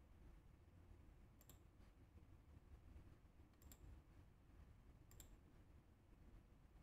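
Near silence: low room hum with three faint, sharp clicks, about one and a half to two seconds apart.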